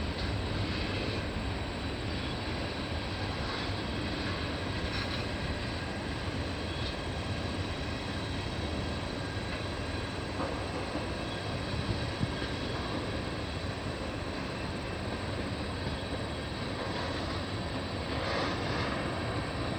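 Steady low rumble of CN freight diesel locomotives running at a distance while the train switches in the yard.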